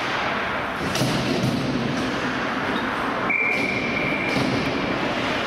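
Ice hockey game sounds: a single sharp knock about a second in, then a referee's whistle blown with one steady blast of about a second just after the midpoint, over steady rink noise.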